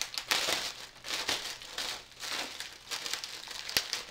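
Clear plastic packing bag crinkling and rustling in irregular bursts as it is handled and worked open by hand, with one sharp snap near the end.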